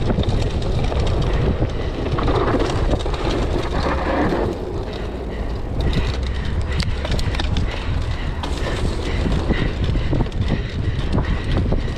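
Mountain bike rattling and clattering continuously as it rides down a rough, wet dirt trail, with tyre noise and low wind rumble on the mic.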